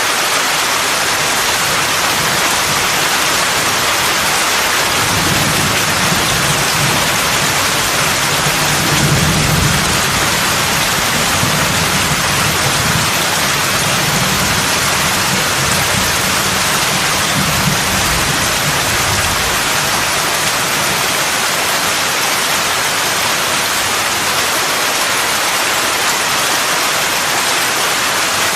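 Heavy rain pouring steadily, with a long low rumble of distant thunder building from about five seconds in, loudest around ten seconds and dying away by about twenty.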